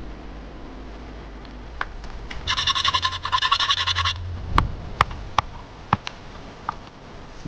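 Rapid scraping strokes for about a second and a half, then four sharp knocks.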